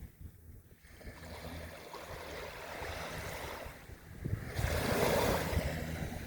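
Ocean waves washing onto a beach: one wash swells about a second in, then a louder wave breaks and rushes up near the end. A low wind rumble on the microphone runs underneath.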